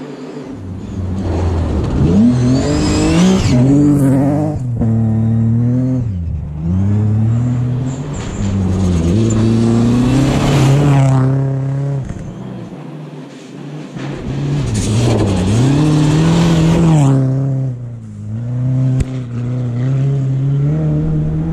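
Rally car engine revving hard as the car approaches and passes, its pitch climbing and then dropping again and again with gear changes and lifts off the throttle.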